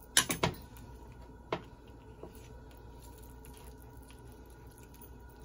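Hand mixing minced chicken kebab mixture in a plastic bowl: three sharp knocks in quick succession near the start and another about a second and a half in, with quiet squishing of the mince.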